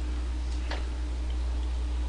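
Steady low electrical hum picked up by the microphone, with one short click about three-quarters of a second in from handling a sticky sauced fried chicken piece.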